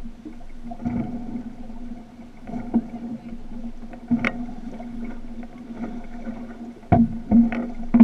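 Water lapping and slapping against the hull of an outrigger canoe at rest, with occasional sharp knocks, a cluster of them near the end, over a steady hum.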